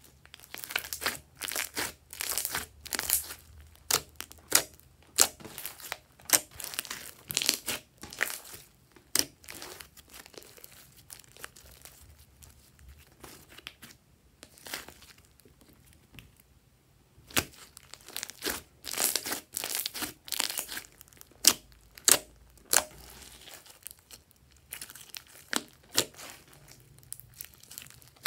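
Hands squishing and stretching glossy slime: quick runs of sticky crackles and pops, easing off for several seconds about halfway through before the squishing picks up again.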